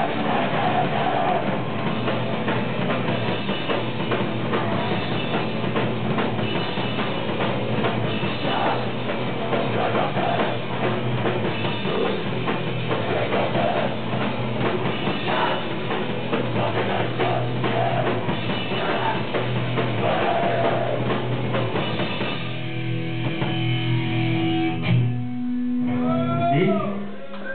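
A rock band playing live and loud: electric guitars, bass and a drum kit, with vocals. Near the end the full playing drops away to a few held notes, then several swooping rising-and-falling tones.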